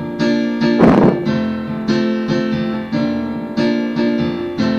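Electric piano playing repeated sustained chords in a steady rhythm, accompaniment to an improvised song, with a brief noisy burst about a second in.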